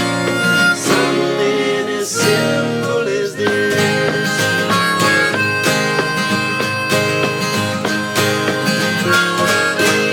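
Instrumental music without singing: long held melody notes over steady strumming.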